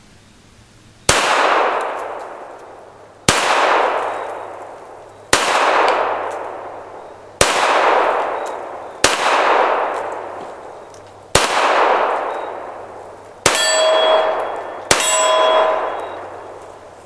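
Eight pistol shots fired slowly, about two seconds apart and a little quicker at the end, each followed by a long echo off the woods. The last two hits set the AR500 steel torso target ringing with a clear metallic tone.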